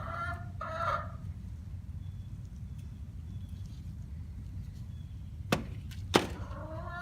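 A chicken clucks briefly at the start, then two sharp clicks come about half a second apart, over a low steady hum.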